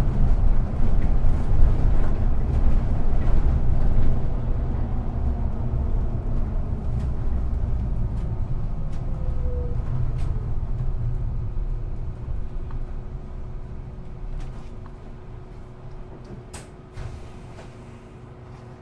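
Inside a city bus: the deep engine and road rumble fades steadily as the bus slows, with light rattles and clicks throughout. A short squeak comes about halfway, and a sharp click near the end.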